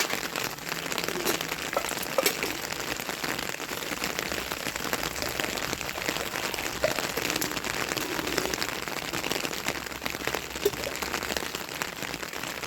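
Rain falling as a steady hiss, with scattered sharper drop hits and a few louder taps.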